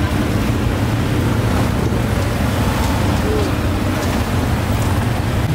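Steady low rumble of street traffic and running engines, with faint voices in the background.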